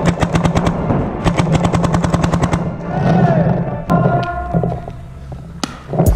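Electronic paintball marker firing rapid strings of shots, about a dozen a second. One short string is followed by a longer one about a second later, then the firing stops.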